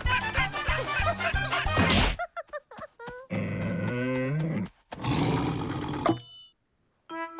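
Cartoon soundtrack: busy rhythmic music that stops about two seconds in. A string of short comic sound effects and character noises follows, with pitches sliding up and down, then a sharp hit with a ringing tail about six seconds in. After a moment of silence the music starts again.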